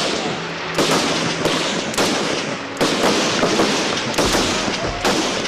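Several Howa Type 64 battle rifles firing 7.62×51mm reduced-load rounds in single shots on an open range, overlapping reports coming irregularly about every half second to a second, each with a long echoing tail.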